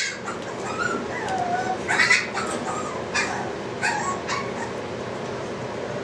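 Boston Terrier puppies whimpering and yipping: a string of short, high calls that bend in pitch during the first four seconds or so, over a steady hiss.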